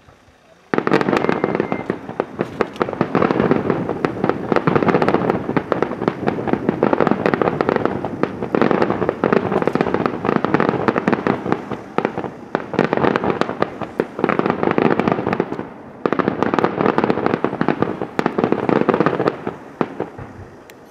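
Daytime aerial fireworks bursting in a dense, continuous barrage of rapid bangs and crackling reports. It starts abruptly about a second in and eases briefly a few times before building again.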